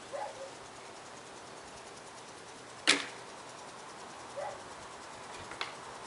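A single sharp crack about three seconds in, over a steady outdoor hiss, with two short chirps and a fainter click near the end.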